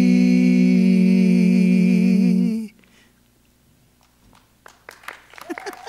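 A small choir holds the final chord of a chant, with a waver coming into the voices about a second in, and cuts off sharply just under three seconds in. After a short pause, scattered clapping begins near the end.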